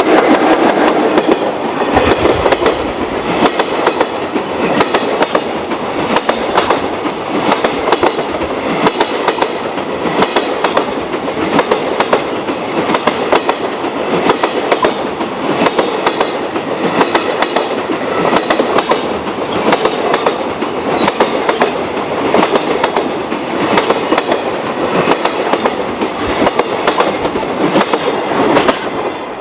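Long freight train's wagons passing over rail joints: a loud, continuous rattling clatter of wheels striking the joints for about half a minute. It cuts off suddenly at the very end.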